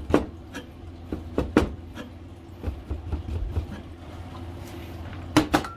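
Kitchen knife cutting dry salami sticks into thin strips on a cutting board: a run of irregular knife taps against the board, the loudest two close together near the end.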